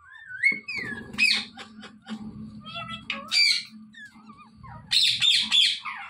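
Parrots calling: gliding chirps broken by loud, harsh squawks about a second in, at about three seconds, and again near the end, over a low steady hum.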